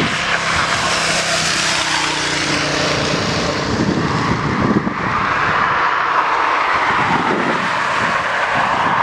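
ATR-type twin turboprop airliner at takeoff power on its takeoff roll: a steady loud roar and hiss of engines and propellers, with a low propeller hum that fades after about three seconds.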